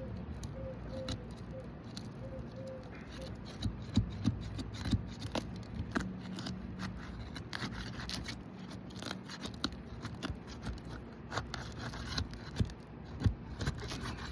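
Asphalt shingles being pried and worked loose by hand, with scraping and scattered sharp clicks, loudest in two clusters, about four seconds in and near the end. The shingles are still held by their sealant strips, which are being broken free.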